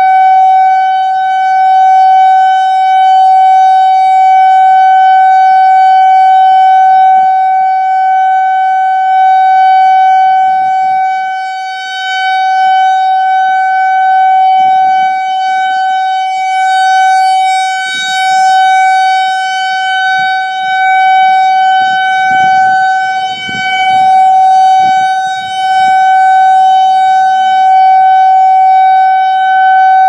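Whelen WPS-4004 electronic outdoor warning siren sounding the steady Alert signal: a single unbroken tone with strong overtones. Its loudness swells and dips as the rotating horn array sweeps around, most deeply about twelve seconds in and again near twenty-three seconds.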